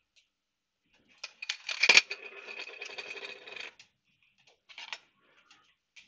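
Plastic housing halves of a FireAngel ST-620 smoke alarm being handled and knocking together: a run of clicks and rattles with one sharp knock about two seconds in, then a few faint ticks.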